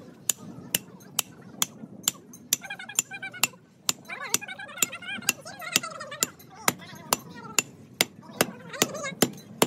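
A sledgehammer striking the top of a steel bar held upright on a steel block: sharp metal-on-metal blows at a steady pace of about two a second.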